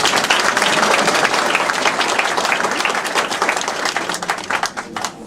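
Audience applauding a graduate, a dense run of many hands clapping that thins out near the end into a few scattered claps.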